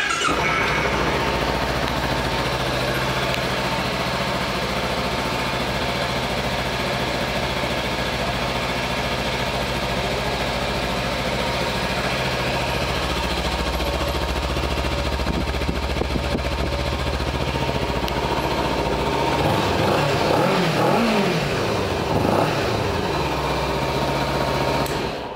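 Kawasaki Ninja 300's parallel-twin engine idling steadily, then revved a few times about twenty seconds in, the pitch rising and falling with each blip of the throttle.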